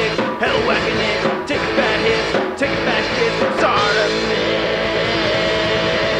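Rock music with a singing voice, steady and loud, with a long held note in the second half.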